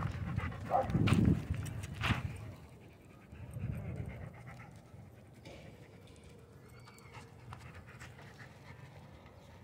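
A dog panting close by, louder in the first two seconds and then faint.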